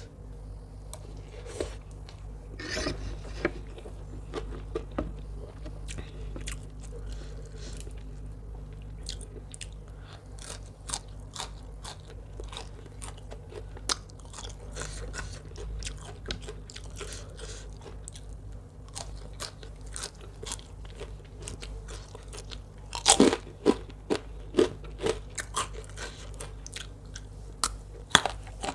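A person chewing and biting into a mouthful of rice noodle salad with fresh raw vegetables, with crisp crunches throughout. A run of louder crunchy bites comes about 23 seconds in.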